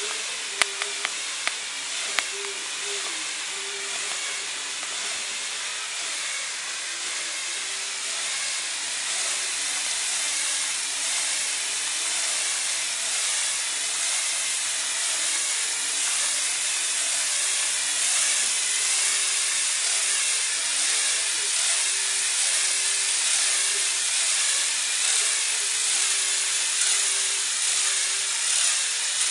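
Small Lego electric motors and plastic gears whirring steadily as they drive the rack-and-pinion legs of a model jack-up rig. A few sharp clicks come in the first couple of seconds.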